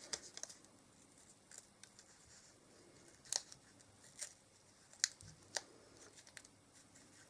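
Small craft scissors snipping several times at a quiet table, heard as a handful of separate sharp clicks.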